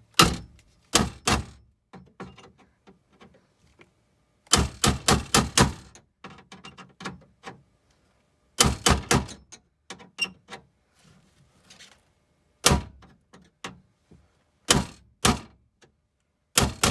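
Hammer striking a pin punch set on the centre of an aluminium pop rivet, in quick runs of several sharp metal blows with pauses between, knocking the rivet's centre pin out so the rivet can be drilled.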